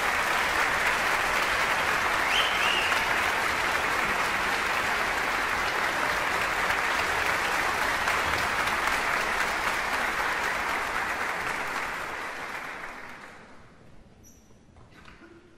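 Concert hall audience applauding steadily, the applause fading out over a couple of seconds near the end.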